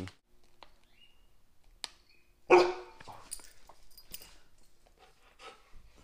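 A dog barks once, loudly, about two and a half seconds in, followed by a few fainter short yips and noises, as it begs for a treat.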